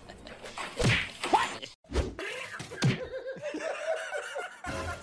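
A few dull thumps and knocks, about one, two and three seconds in, followed by a short wavering voice-like sound.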